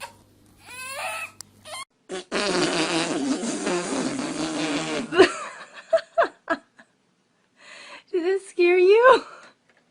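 A long fart lasting about three seconds, starting about two seconds in, with short voice sounds before and after it.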